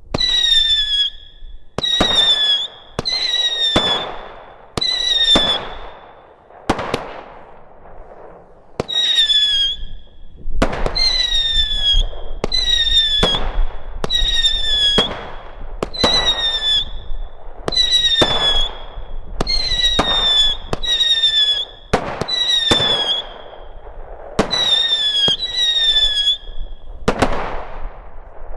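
Multishot firework cake firing whistling jets (whistling silver serpents) one after another, mostly about a second apart with a few longer gaps. Each shot is a sharp launch followed by a shrill whistle that falls slightly in pitch and lasts about a second.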